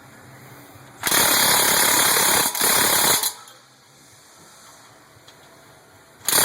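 Pneumatic impact wrench rattling in two bursts, loosening the 17 mm brake caliper bolts: a run of about two seconds starting a second in, then another starting right at the end.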